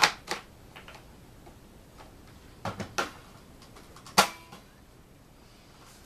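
Hard plastic clicks and knocks of a Vax Zoom Pet upright vacuum being put back together, its clear cyclone dust bin fitted back onto the body: a handful of separate sharp clicks, the loudest a little after four seconds in.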